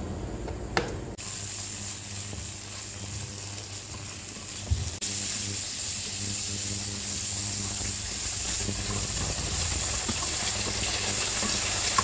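Chopped chicken giblets sizzling as they fry in oil in a nonstick frying pan while being stirred with chopsticks. The sizzle picks up about a second in and grows stronger in the second half, with a single light knock just before the middle.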